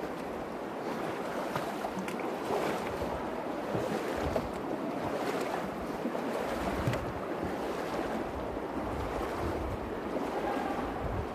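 Shallow Virgin River flowing and riffling over cobbles in a steady rush, with wind buffeting the microphone in low rumbles now and then.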